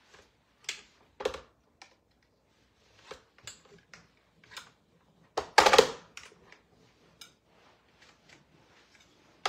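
Scattered knocks and taps as a cheese mold is worked to release freshly made cheese, with a louder cluster of knocks about five and a half seconds in.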